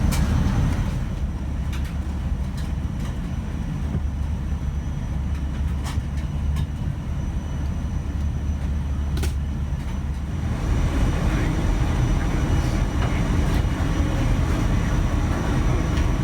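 Cabin noise inside a Boeing 747-400 parked at the gate: a steady low rumble with a few faint clicks, which grows fuller in the middle range about ten seconds in.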